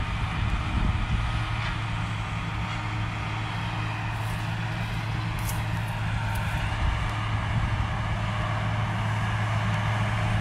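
Tractor engine running steadily at work while pulling a disc harrow across a field, a continuous low hum under a rough, noisy wash.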